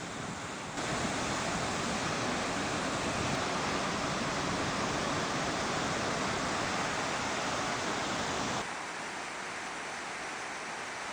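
Steady rushing of Chitrakote Waterfall, the wide falls of the Indravati River: an even wash of falling water. It gets suddenly louder about a second in and drops back abruptly near the end, as at a change of shot.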